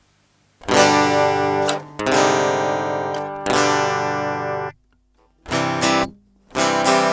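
Outro music on acoustic guitar: three strummed chords, each left to ring for over a second, then a short pause and two shorter chords near the end.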